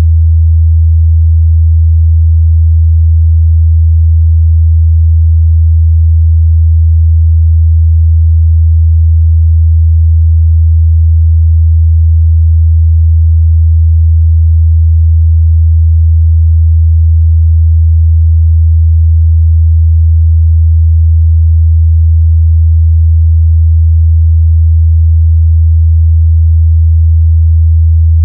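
Continuous 81 Hz sine test tone: a steady, loud, low pure hum that does not change.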